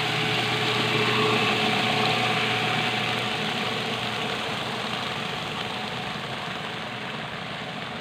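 Electric paddlewheel aerator running: a steady motor hum over continuous water splashing, which fades gradually over the second half.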